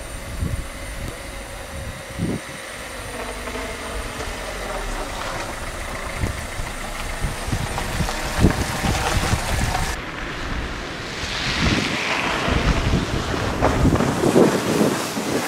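Wind buffeting the microphone over outdoor traffic noise, a steady rumble with scattered low thumps. The sound changes abruptly about two-thirds of the way through.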